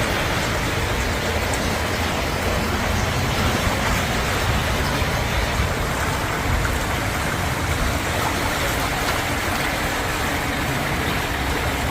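Steady, loud rush of a heavy downpour, with a deep rumble underneath.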